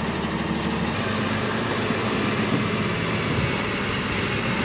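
Heavy goods truck's diesel engine running steadily at low revs.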